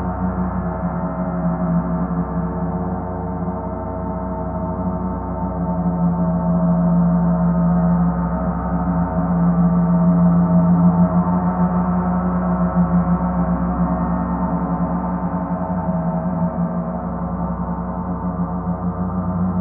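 Paiste planetary gongs ringing in a sustained, shimmering drone of many steady overlapping tones, with no distinct new strike. It swells gently around the middle and eases off toward the end.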